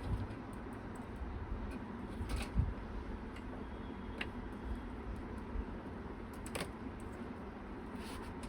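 A few faint clicks and light handling noise as PC case fan cables and connectors are worked and plugged in, over steady low background noise.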